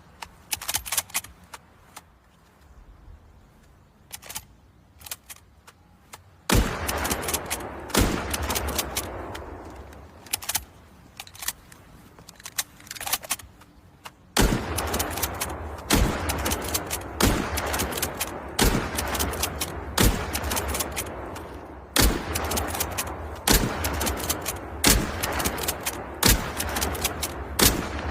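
Lee-Enfield bolt-action rifle, .303 British, firing. After about six seconds of light clicks, loud shots ring out with long echoing tails. From about halfway through they come every second and a half or so.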